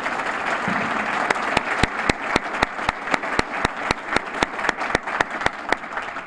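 A roomful of people applauding, with one person's claps close to the microphone standing out at about four a second. The applause dies away near the end.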